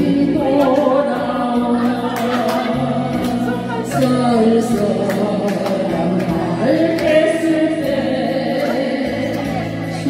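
Elderly woman singing a slow Korean pop ballad into a handheld microphone over an instrumental backing track.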